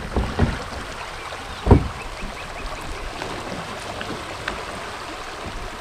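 Shallow river water running and rippling over a gravel bar, with a few dull thumps, the loudest about a second and a half in, and a short run of faint high chirps just after two seconds in.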